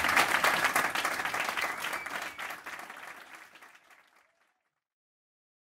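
Audience applauding, the clapping fading out and gone about four seconds in.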